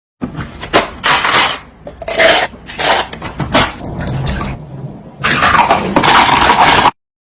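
Household items being handled: a string of knocks, clatters and scrapes, then about a second and a half of continuous rustling or scrubbing near the end, cut off suddenly.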